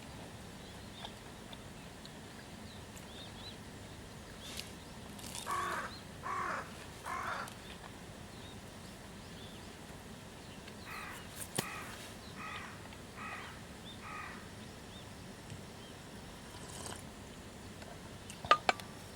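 Crow cawing: three louder caws in a row, then a run of five fainter caws a few seconds later, over a steady low outdoor background. A couple of sharp clicks near the end.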